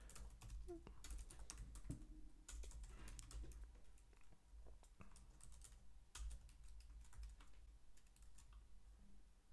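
Faint typing on a computer keyboard: irregular runs of short key clicks with brief pauses between them.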